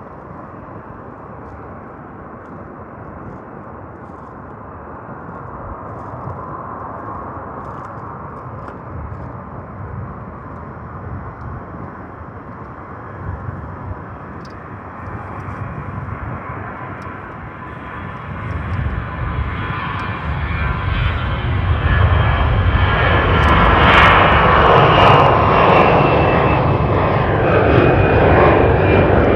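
Airbus A320-214's twin CFM56 turbofan engines at takeoff power, the jet noise building steadily as the airliner rolls down the runway. It grows much louder after about eighteen seconds and peaks a little past twenty seconds in, with a high whine that slides slightly down in pitch as the aircraft passes.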